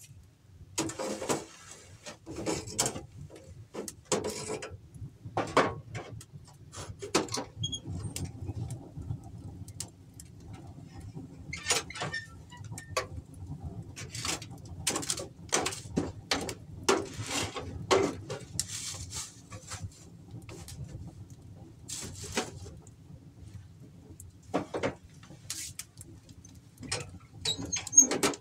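Irregular scrapes and knocks of hand plastering work, with a trowel working plaster, over a low steady hum.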